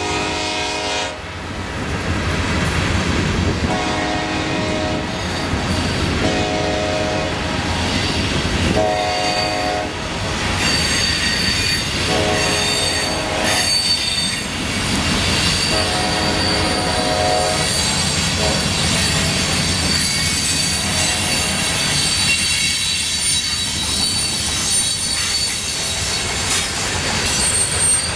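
A freight train's cars of hoppers, gondolas and coil cars rolling past with a steady rumble and the clack of wheels on rail joints. A train horn sounds in about six separate blasts of a second or two through the first two-thirds. High-pitched wheel squeal rises in the second half.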